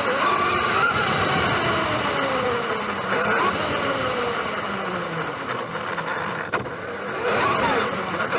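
Electric RC monster truck driving, its motor whine rising and falling in pitch as it speeds up and slows down several times, over a steady noise, with a single sharp knock about six and a half seconds in.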